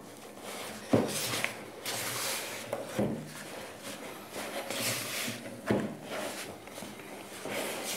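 Silicone spatula stirring soft scone dough in a plastic mixing bowl: repeated scraping swishes, with a few sharp knocks of the spatula against the bowl.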